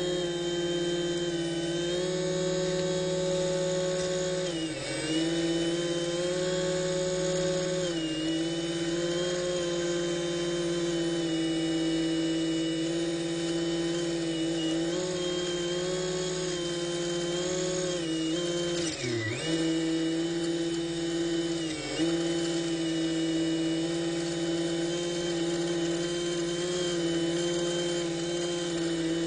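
A Robbe Seawolf RC model submarine's electric drive motor whines steadily as the sub cruises underwater. A few times its pitch briefly drops and picks up again.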